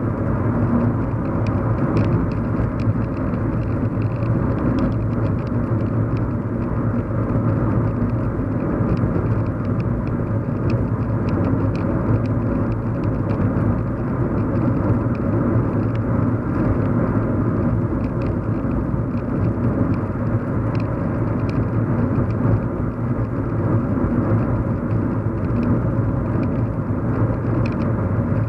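Steady hum and road rumble inside a moving car's cabin, with faint light ticks scattered through it.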